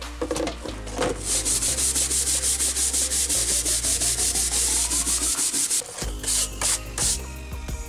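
Rapid back-and-forth scrubbing of the old radio's leather-covered case, about four strokes a second, with a short pause about five seconds in and a few more strokes after.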